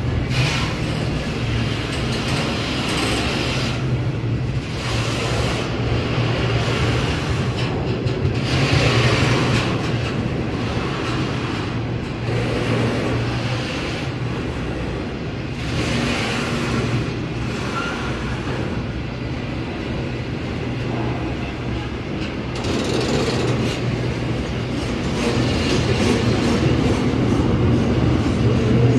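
Container freight train's wagons rolling past close by: a steady noise of steel wheels on rail over a constant low hum, growing a little louder near the end.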